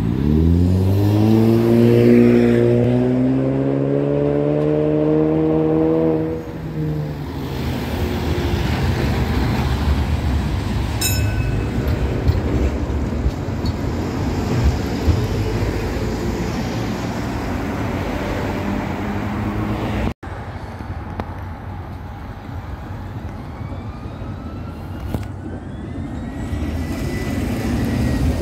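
A road vehicle's engine accelerating close by for the first six seconds, its note rising steadily. Then the Bucur V2A-T tram rolls in past along the rails against steady traffic noise, with faint rising whines near the end as the tram moves along.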